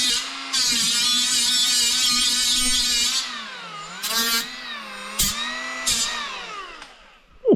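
Handheld electric power tool sanding fibreglass: a high motor whine with harsh grinding, the pitch sagging when it is pressed into the work. It is switched off and winds down near the end, followed by a sharp knock.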